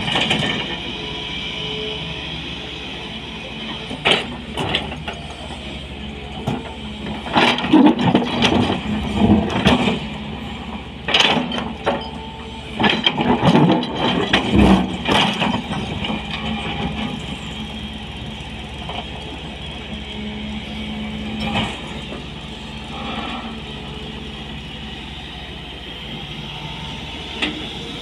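Sany 220 hydraulic excavator's diesel engine running steadily under load while it works quarry stone. Through the middle there are repeated bursts of rock clattering and scraping and metal clanking from the bucket and tracks. These die down to the engine alone in the later part and pick up again near the end.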